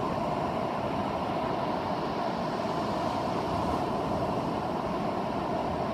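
Steady rushing wash of ocean surf and wind, heard through a phone microphone.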